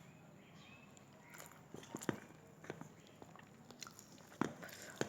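A person chewing a mouthful of khichuri and beef curry close to the microphone, with a series of short wet mouth clicks that grow more frequent after about a second and a half, the sharpest about two seconds in and near the end.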